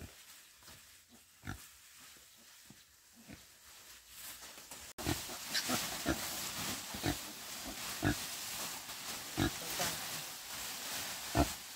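Pig grunting in short, separate grunts, sparse at first and then about one a second. Behind them is a steady hiss that gets suddenly louder about five seconds in.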